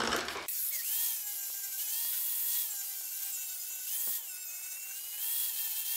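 Electric random orbital sander running on the edge of a hardwood cutting board: a steady high whine over a hiss, its pitch sagging and recovering several times. A brief rough rasping noise comes at the very start, before the sander.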